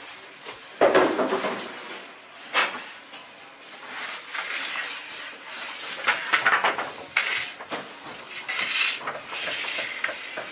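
Clatter of bakery work: irregular knocks and clinks of utensils, with scraping sounds in between.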